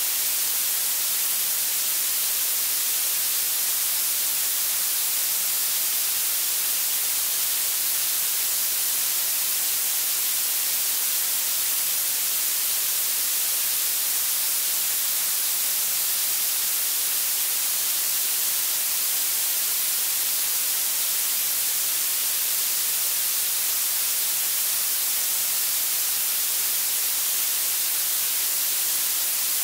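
Blue noise: a steady, unchanging hiss that grows stronger toward the treble, so it sounds bright and thin with almost no bass.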